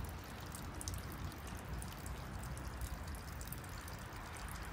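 Water trickling steadily by gravity out of a Sawyer Mini hollow-fibre water filter screwed onto an upside-down PET bottle.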